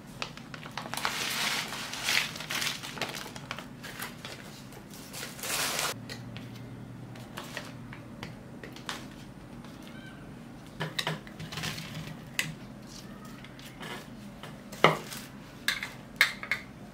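Fried chicken pieces and other food being set down by hand on a stainless steel tray: a few seconds of rustling, then a run of sharp taps and clinks on the metal, the loudest about fifteen seconds in.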